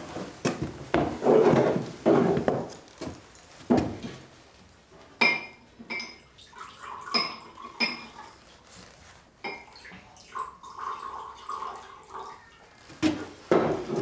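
Spoons clinking and scraping against bowls, with dishes knocking on a wooden table. There are heavier thuds and knocks in the first few seconds, then a run of short ringing clinks from about five seconds in, and louder knocks near the end.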